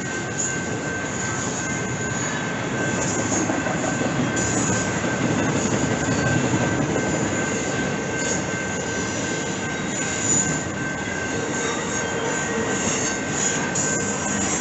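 BNSF intermodal freight train rolling past close by, its flatcars of semitrailers rumbling steadily on the rails. High wheel squeals come and go.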